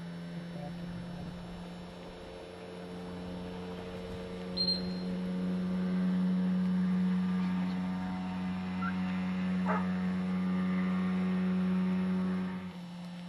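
A steady low hum with a few evenly spaced overtones. It grows louder about four seconds in and cuts off abruptly near the end. A brief high, thin tone sounds once about four and a half seconds in.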